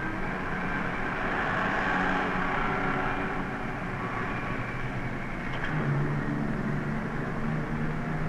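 Steady street traffic noise with vehicles passing.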